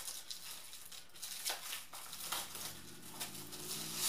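Packaging crinkling and rustling as it is handled, in a run of short, irregular scratchy strokes.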